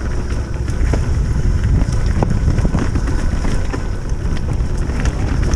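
Wind buffeting the microphone during a mountain bike ride: a loud, steady low rumble with scattered clicks and knocks from the bike on the trail.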